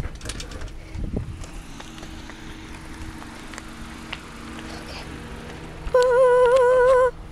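A door thump about a second in, then faint footsteps and handling noise on a concrete driveway. About six seconds in, a loud held note with a quick regular waver in pitch sounds close to the microphone for about a second, like a person's sung or hummed note.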